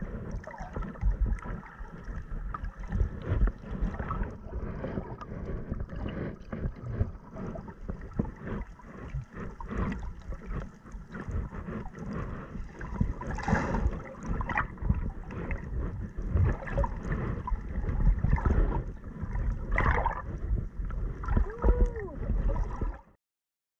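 Underwater sound picked up by a submerged action camera while snorkeling: muffled water rushing and gurgling around the housing, with frequent knocks and bumps as the swimmer moves. It cuts off abruptly near the end.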